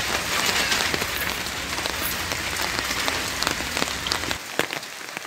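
Hail and rain pattering densely on roofs and ground: a steady hiss of many small impacts. The low rumble under it drops away about four seconds in.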